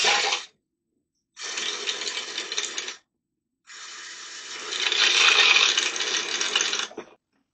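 Water rushing through a partly opened valve into a newly plumbed UV water sterilizer as the system is slowly filled and pressurized, hissing in three bursts; the last is the longest and loudest, swelling about five seconds in.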